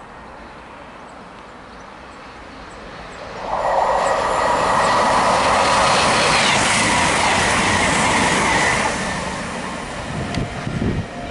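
CrossCountry Voyager diesel-electric multiple unit passing at speed without stopping. Its engine and wheel noise builds quickly about three seconds in, stays loud for about five seconds with a steady high whine, then fades as it draws away.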